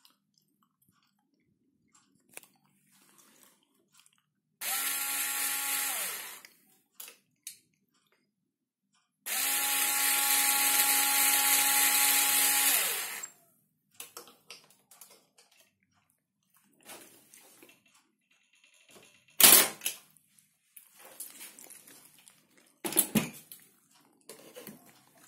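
Parkside PSSA 4 B2 cordless electric screwdriver turning a Timemore Nano hand coffee grinder: two runs at a steady pitch with a grinding hiss over the motor, one short and a longer one of about four seconds. Afterwards a few light knocks and two sharp thumps, the first of them the loudest sound here.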